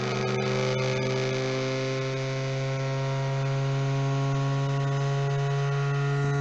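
Electric-motor-driven shaft and rotor disc of a shaft-balancing test rig running at about 8,000 rpm, a steady hum with a whine above it, rising slightly in pitch as the speed is turned up. A single screw added to the disc leaves the rotor out of balance.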